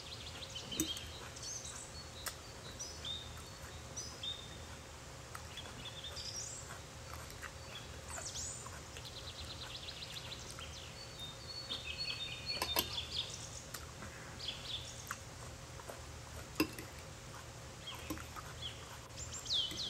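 Small birds chirping and trilling on and off, with quick rising and falling whistles and rapid twittering runs, over a faint steady hum. A few sharp clicks stand out, the clearest about two-thirds of the way through.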